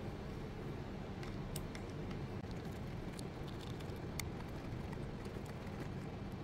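Faint, scattered small clicks of a precision screwdriver working the tiny screws on a small aluminium receiver case, over a steady low background rumble.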